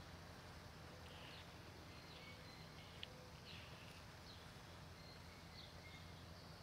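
Quiet outdoor ambience: faint, scattered bird chirps every second or so over a low steady hum, with one small tick about three seconds in.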